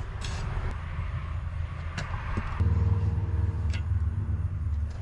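A motor vehicle engine running with a steady low rumble, which becomes louder and more even about halfway through, with a few light sharp clicks over it.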